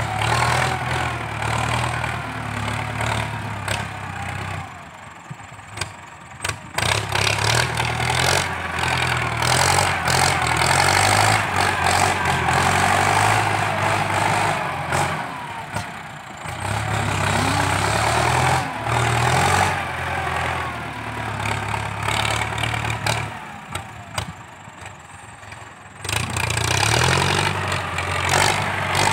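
Ford 6640 tractor's diesel engine running under load as the tractor pushes and levels soil with its front blade, the engine note rising and falling with the work. It drops away twice, for a few seconds each time, before coming back up.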